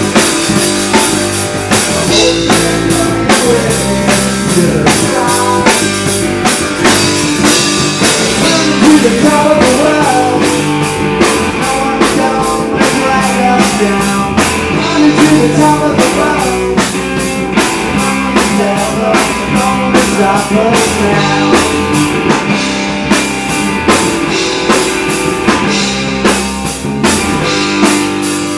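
A rock band playing live and loud: electric guitar over a drum kit keeping a steady, even beat.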